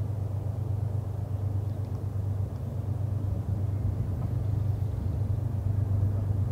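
GE diesel freight locomotives approaching from a distance, a steady low engine rumble that grows gradually louder.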